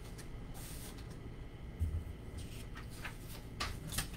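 Sheets of paper being handled and shifted on a desk: a series of short rustles, with a low bump about two seconds in.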